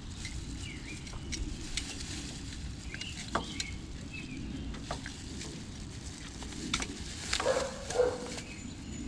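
Outdoor background with faint bird chirps and scattered small clicks, then a dog barking a couple of times near the end.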